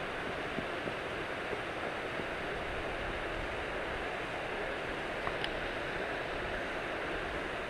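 Steady rush of water pouring over the reservoir's dam spillway. A couple of faint clicks come about five seconds in.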